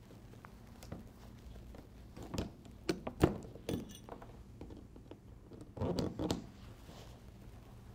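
Excess bolt ends of Flexco bolt solid plate belt fasteners being snapped off with a pair of steel-tube bolt breakers worked in short, quick strokes: scattered sharp metallic clicks and snaps, the loudest a little past three seconds in and a quick cluster near six seconds.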